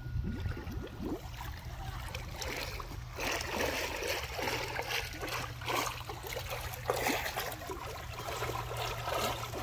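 Pool water splashing and churning from a swimmer's flutter kick as he floats on his back, a continuous run of irregular splashes.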